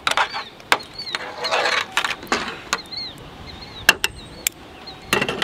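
Long magazine coil spring and plastic follower being handled by hand, with scattered light clicks and ticks as the coils knock together while the follower is worked onto the spring.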